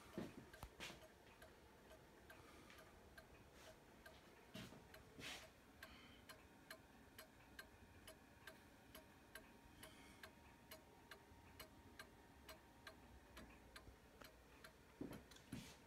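Antique mantel clock's brass pendulum movement ticking quietly and evenly, with a few soft knocks of handling near the start, about five seconds in and near the end.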